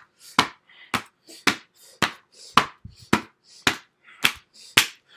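Steady rhythmic smacks, about two a second, of hand-held children's books being banged together.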